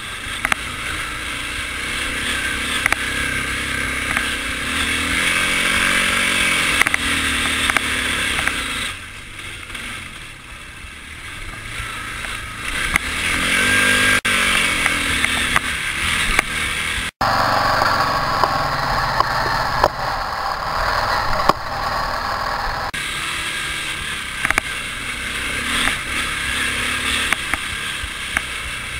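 ATV engine running under throttle, its pitch rising twice as it revs and dropping away for a few seconds in between, with a brief cut-out about seventeen seconds in.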